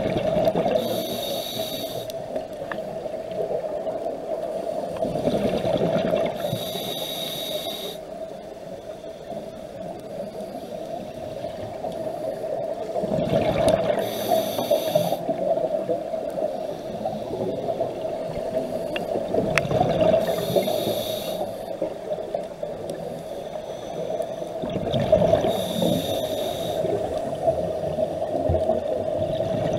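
Scuba diver breathing through a regulator underwater: a hissing inhale and a rush of exhaled bubbles, repeating about every six seconds over a steady hum.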